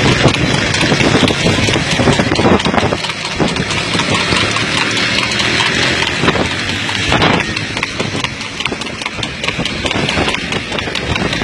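Motor vehicle engine running as it drives alongside a trotting horse-drawn tanga, with heavy road and wind noise and many short clicks scattered through it.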